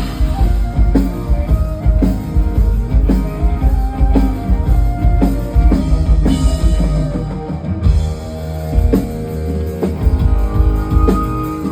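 Live band playing through a PA system at a sound check: a drum kit keeping a steady beat, with guitar and a melodic lead line that holds and glides between notes.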